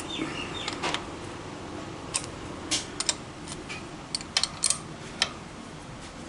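Irregular sharp metallic clicks and clinks from a 10 mm socket spanner from a motorcycle's factory tool kit working on bolts as they are loosened, about a dozen in all, bunched in two groups around the middle.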